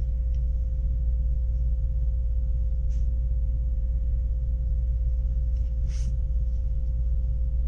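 A steady low electrical hum with a faint steady higher tone above it, and a few faint brief rustles as the microphone and its coiled cable are handled, the clearest about six seconds in.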